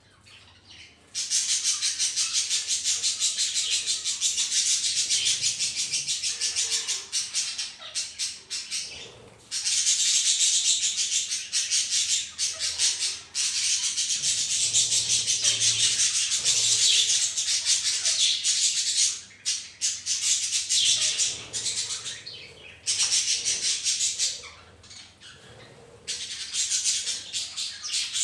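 A flock of budgerigars chattering, a dense high-pitched warble of rapid chirps. It starts about a second in and breaks off briefly a few times.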